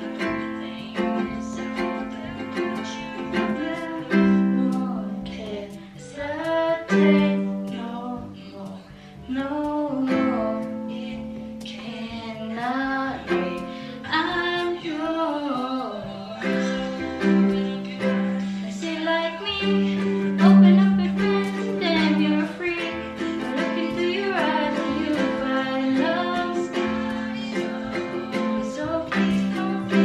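A ukulele being played, chords and plucked notes ringing on, with a woman's voice singing along.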